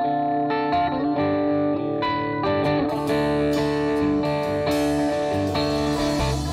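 Stratocaster-style electric guitar picking a melodic line of notes that ring over one another.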